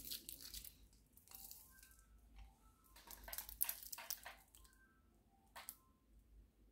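Faint handling of a steel-bracelet wristwatch: rustling and light metal clinks as it is lifted out and held on the wrist, busiest a little past the middle. A faint tune of a few short high notes repeats every few seconds behind it.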